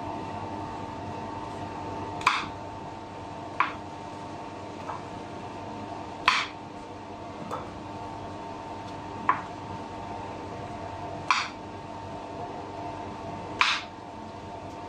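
Serrated knife slicing through button mushrooms and striking a bamboo cutting board: sharp single knocks every second or two, over a steady background hum.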